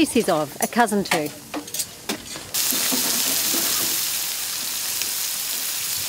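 Crayfish sizzling on a hot grill: a steady frying hiss that starts suddenly about two and a half seconds in, after a woman's voice.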